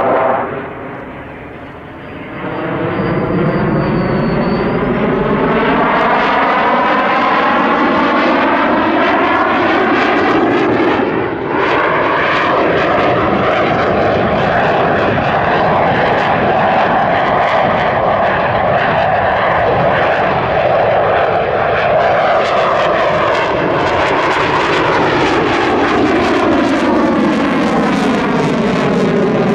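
General Dynamics F-16AM Fighting Falcon's single Pratt & Whitney F100 turbofan running loud as the jet manoeuvres overhead, with a sweeping, phasing tone that rises and falls as its distance and angle change. The sound drops away for a couple of seconds near the start, then stays loud.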